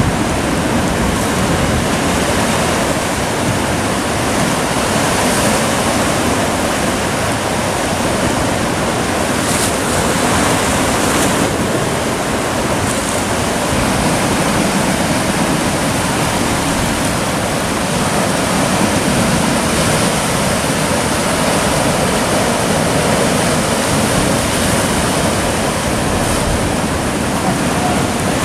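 Ocean surf churning and breaking against a rocky shore, a loud, steady rush of water.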